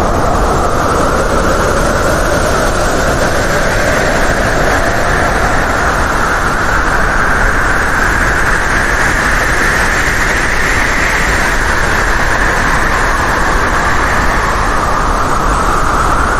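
Strong wind blowing hard: a continuous rushing noise with a howling whistle that slowly rises and falls in pitch.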